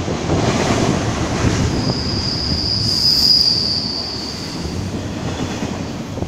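Union Pacific double-stack container train rolling past, its cars rumbling steadily on the rails. About two seconds in, a high, steady wheel squeal swells up, peaks and fades out over roughly two and a half seconds.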